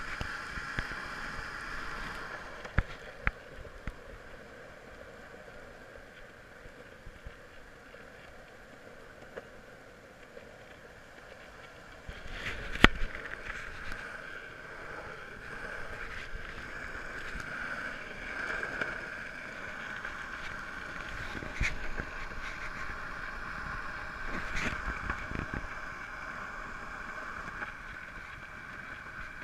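Skateboard wheels rolling steadily over a concrete path, a continuous rolling noise, with a few sharp knocks, the loudest about halfway through.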